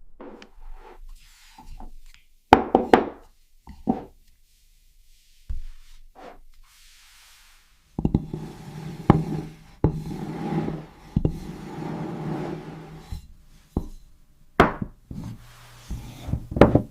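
Objects being handled: sharp knocks and taps with rubbing and scraping between them, busiest in the middle, quiet for a few seconds before that.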